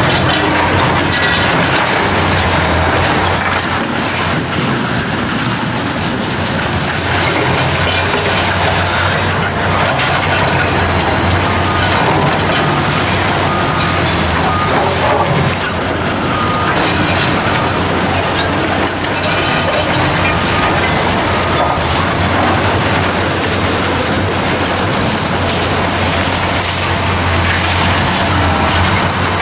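Liebherr R 960 crawler excavator's diesel engine running steadily under load, with the scraping, cracking and clattering of concrete rubble and rebar as its demolition grab breaks up and lifts a concrete foundation.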